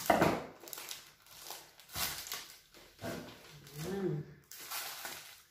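Plastic packaging crinkling and rustling in several short bursts as lumpia wrappers are peeled and handled, with a brief voice-like pitched sound about four seconds in.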